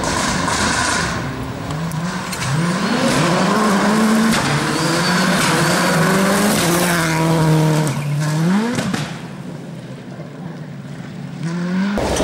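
Rally car engine at full throttle on a special stage, its note climbing, dropping and climbing again through gear changes, then fading away; the engine note rises again near the end.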